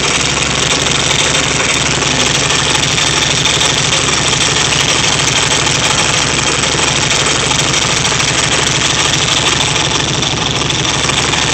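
Freshly rebuilt VW 1600 cc single-port air-cooled flat-four engine running steadily on its first run after the rebuild.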